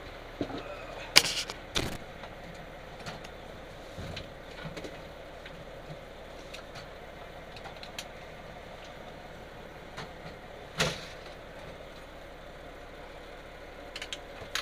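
Steady hum of a fire engine idling, broken by a few sharp bangs: the loudest just over a second in, another just under two seconds, and one near eleven seconds.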